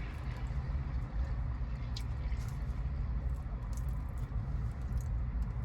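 Steady low vehicle engine rumble, with a few faint light clicks over it.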